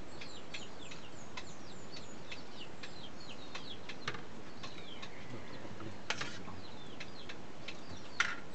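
Birds chirping over and over in short, high, falling peeps, with a few sharp clinks of utensils against plates, the loudest near the end.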